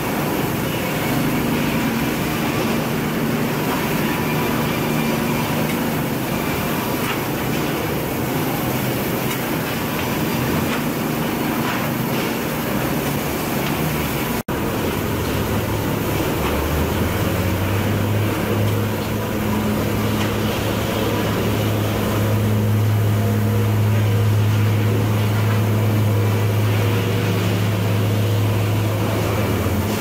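Sawmill lumber-stacking machinery running with a steady mechanical hum and clatter. A brief cut about halfway through brings a stronger, deeper hum that holds to the end.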